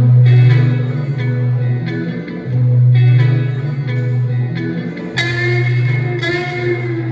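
Guitar playing a blues improvisation in B minor over a looper-pedal loop: a repeating low note pattern, with brighter high lead notes coming in about five seconds in and again a second later.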